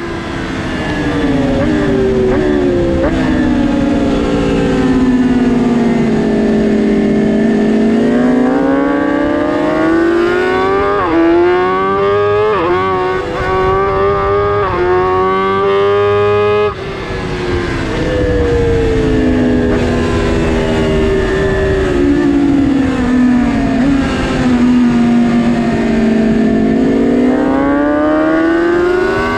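Onboard sound of a 2022 BMW S1000RR's inline-four engine on track, over wind rush. The engine note sags slowly, climbs again, then jumps through three quick upshifts. After an abrupt break a little over halfway, it sags and builds once more.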